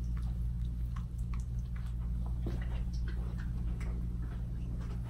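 Small dog licking a person's face: faint wet smacking clicks, scattered and irregular, over a steady low hum.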